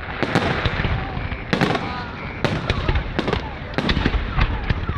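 Fireworks display: a string of loud bangs from shells bursting roughly once a second, with crackling between them.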